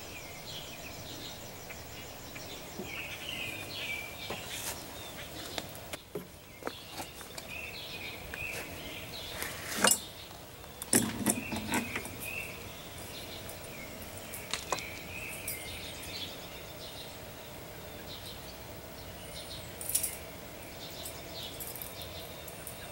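Outdoor background with birds chirping on and off, broken by a few sharp clicks and knocks, the loudest about ten, eleven and twenty seconds in.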